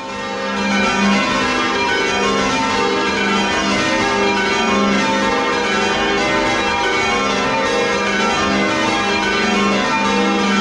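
Church bells rung full circle in change ringing, heard close up from inside the belfry: bells striking one after another in a quick, even sequence. The sound fades in over the first half second.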